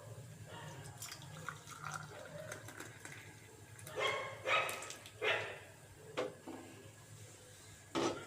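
Hot herbal decoction being poured from the pan through a strainer into a glass, liquid splashing and trickling, with a few short louder splashes and knocks about halfway through.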